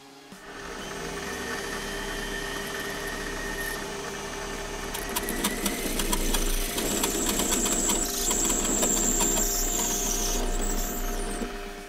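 Small metal lathe turning a brass rod, its motor running with a steady whine. From about five seconds in the cutting tool bites into the spinning brass, adding a crackling chatter and a high thin tone, which fade out near the end.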